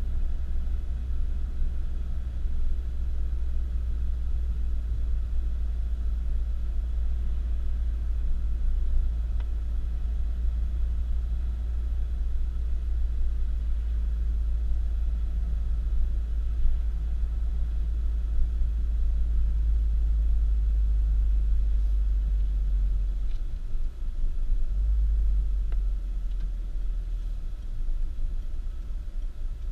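Steady low rumble of a car on the move, with its road and engine noise heard from inside; the rumble dips briefly about three-quarters of the way through.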